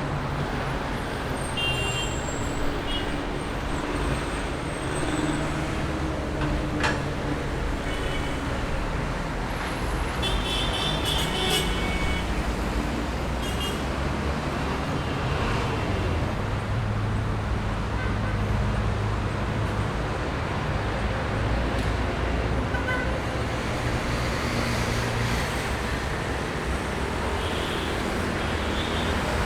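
Busy road traffic: vehicle engines running and tyres on the road in a steady wash of noise, with several short car horn toots, most of them around a third of the way through.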